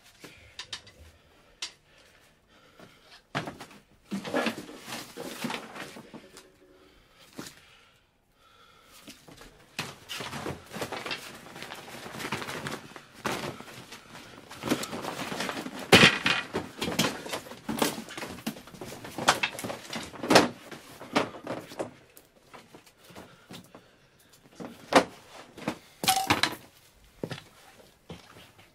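Someone rummaging through a cluttered room: irregular knocks, thumps and scraping of objects being shoved, lifted and dropped, busiest in the middle, with a few sharp bangs.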